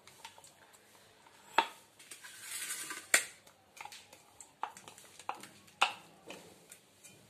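Stainless-steel mixer-grinder jar being handled and tipped out, with about five sharp metal clinks and knocks spread through, and a short scraping rustle about two and a half seconds in. The jar is being emptied of ground masala paste.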